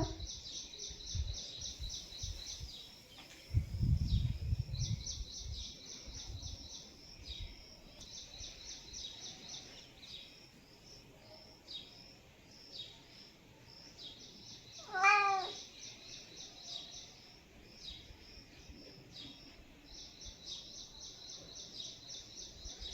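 A domestic cat meows once, a single short call about two-thirds of the way through. Behind it runs rapid, high-pitched chirping in trains of quick pulses, with low rumbling noise in the first few seconds.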